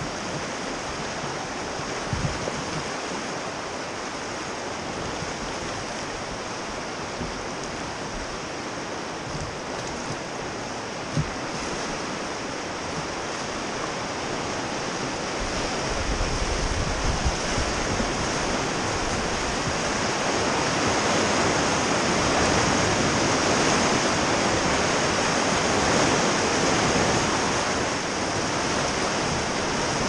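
River whitewater rushing around a raft, a steady noise of churning water that grows louder in the second half, with a couple of brief knocks in the first half.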